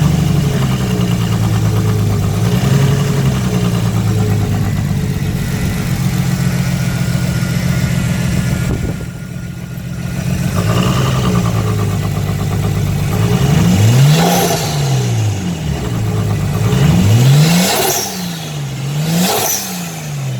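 Nissan RB25DET Series 2 turbocharged 2.5-litre inline-six idling with an unidentified strange noise, which the owner says goes away once the revs pass 2,000 rpm. The idle wavers slowly in pitch at first. From about two-thirds of the way in, the engine is revved up and back down several times in quick succession.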